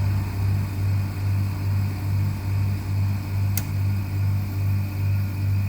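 1979 National floor-standing air conditioner running with its indoor fan on low: a steady low hum that swells and fades about twice a second. There is one sharp click about three and a half seconds in. The owner says the blower's ball bearings have started running dry.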